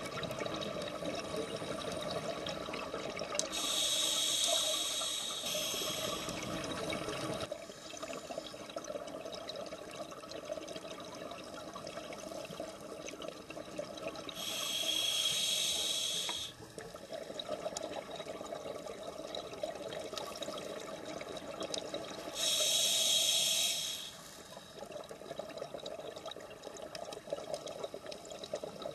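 Scuba diver breathing through a regulator underwater: three loud hissing breaths several seconds apart, with a bubbling rumble of exhaled air that cuts off about seven seconds in, over a steady underwater wash.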